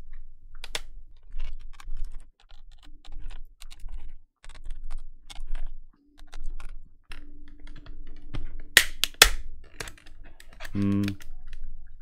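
Small clicks and taps of a hand screwdriver working screws out of a keyboard's plastic case, with screws set down on the desk. A few sharper clicks come about nine seconds in.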